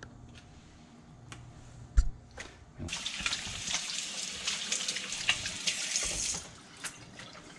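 Kitchen faucet running into a sink for about three and a half seconds, then shut off abruptly. A single sharp knock comes about two seconds in, before the water starts.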